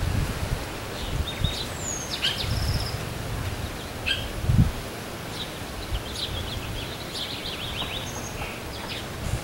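Small songbirds chirping and calling back and forth in short, scattered calls, with a falling whistle about two seconds in and a quick run of notes around two-thirds of the way through, over a low, gusty rumble.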